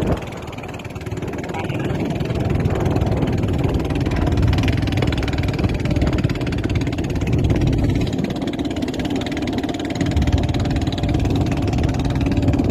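Boat engine running steadily under way, a continuous low rumble with a steady hum, mixed with wind and water noise; it grows louder about a second in.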